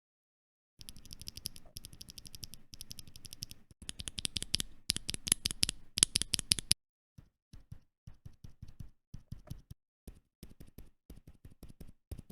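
Akko Penguin silent tactile mechanical keyboard switches being pressed in a sound test: a fast, steady run of clicks for about six seconds, then after a short break slower, separate clicks.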